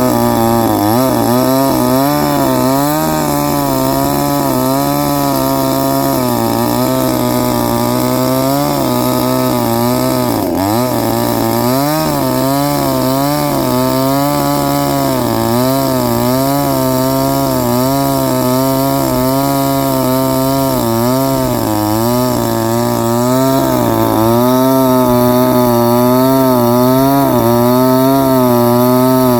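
Chainsaw running under load as it cuts into a tree, its pitch wavering up and down about once a second as the chain bites. The pitch dips sharply for a moment about ten seconds in.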